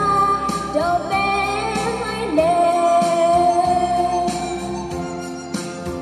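A woman singing a Hmong-language song into a microphone over instrumental accompaniment, holding one long note through the middle; her voice ends near the end, leaving the backing music.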